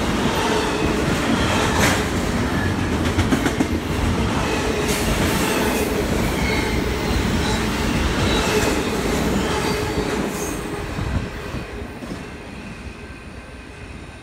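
Double-stack container freight train rolling past close by: steel wheels clacking over the rail joints, with faint intermittent wheel squeal. The noise fades over the last few seconds as the end of the train goes by.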